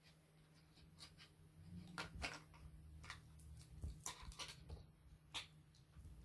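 Faint, scattered clicks and taps of small plastic toy playset pieces being handled, over a low steady hum.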